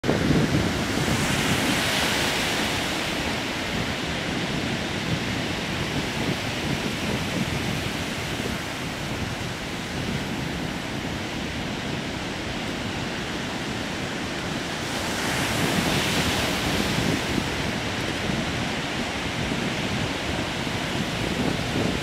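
Pacific surf breaking on a sandy beach: a steady wash that swells twice, about two seconds in and again around fifteen seconds, as waves break and run up. Wind buffets the microphone underneath.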